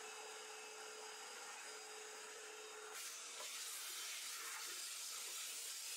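CNC router spindle running steadily with a held whine while milling aluminium, muffled by its plywood enclosure. About three seconds in it gives way to the steady hiss of a shop-vacuum hose sucking up aluminium chips.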